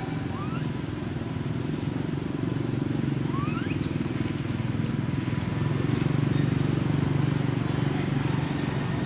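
Low, steady engine rumble, growing a little louder past the middle, with a couple of short rising chirps in the first half.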